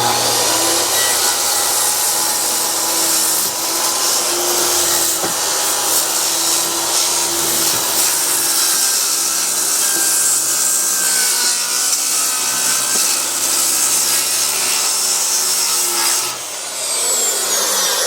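Electric power saw cutting across 2x6 tongue-and-groove door boards to square up the bottom, a steady motor whine under the cut. Near the end the cut finishes and the blade winds down with a falling pitch.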